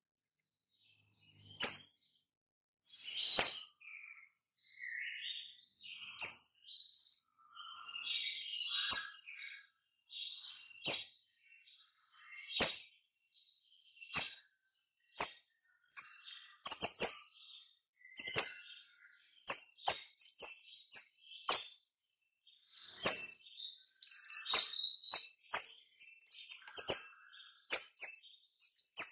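A caged kemade calling in sharp, very high chips, its rapid-fire "nembak" song. The chips come a second or two apart at first, with soft twittering between them, then come faster and closer together from about halfway, several a second near the end.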